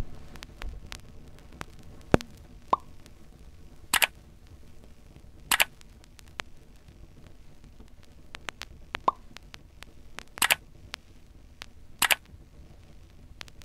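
Scattered small clicks and taps over a faint steady hiss, with four louder, slightly longer clacks coming in two pairs.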